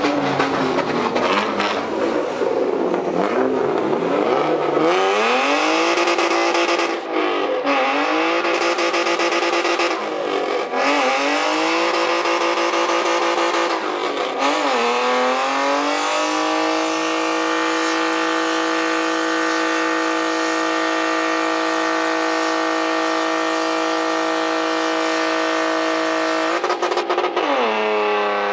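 BMW E36 coupe doing a burnout: the engine revs up and down several times over the hiss of the spinning rear tyres, then holds a steady high rev for about ten seconds before dropping near the end.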